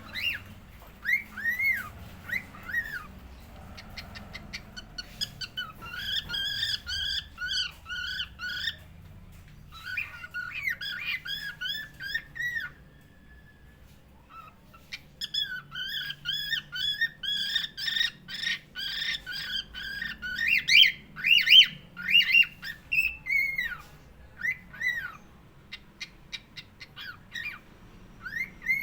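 Cockatiel singing: quick runs of repeated, arching whistled notes, with a short pause about halfway through.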